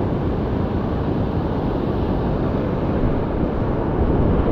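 Rough surf washing over a rocky shore reef, with wind buffeting the microphone, heard as a steady low rumbling hiss.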